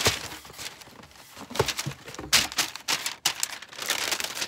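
Shoe-box tissue paper rustling and crinkling as a pair of sneakers is unwrapped, in irregular bursts with a few sharper rustles and a denser stretch near the end.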